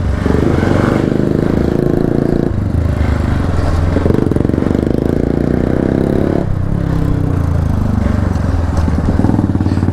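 Hero XPulse 200 Rally Edition's single-cylinder engine running under way on the ride. The engine note shifts twice, about two and a half and six and a half seconds in.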